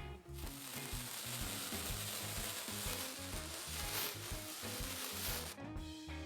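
A steady sizzling hiss, like food frying, that starts just after the opening and cuts off suddenly about five and a half seconds in, over background music with a repeating bass line.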